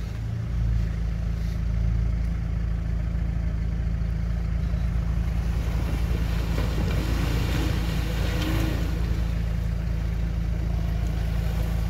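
Second-generation Mitsubishi Pajero off-roader driving slowly over a muddy, snowy track, its engine a steady low rumble as it comes toward the listener.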